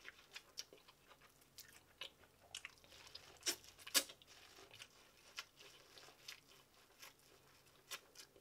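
Biting and chewing the kernels off a cob of boiled sweet corn: a run of short crunches and wet clicks, the loudest two a little past three and four seconds in.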